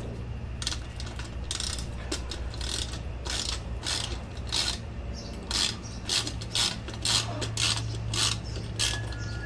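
Hand socket ratchet clicking in short strokes, roughly two clicks a second, as the license-plate bolts are backed out, over a steady low hum.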